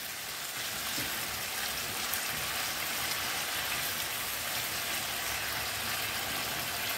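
Minced chicken with garlic paste and ginger sizzling steadily in hot oil in a nonstick frying pan as it is stirred with a plastic spatula.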